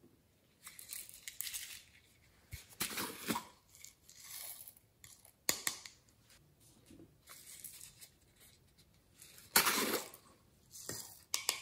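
Plastic shaker bottles handled and shaken, sequins and glitter rattling out onto slime: short scratchy rustling bursts with a sharp click about five and a half seconds in, loudest near the end.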